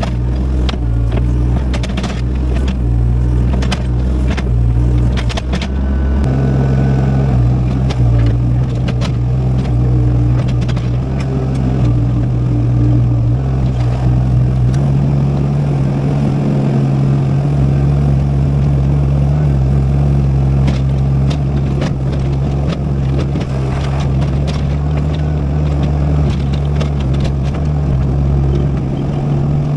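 Excavator's diesel engine running steadily under work, its note stepping up about six seconds in and again about fifteen seconds in, with scattered clanks and knocks from the digging.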